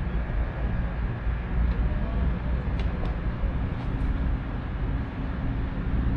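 Steady low outdoor background rumble, with a couple of faint ticks about three and four seconds in.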